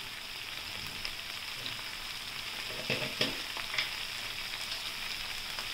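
Chopped onion and tomato with tomato sauce sizzling steadily in oil in a nonstick frying pan as they are sautéed, with a few small clicks near the middle.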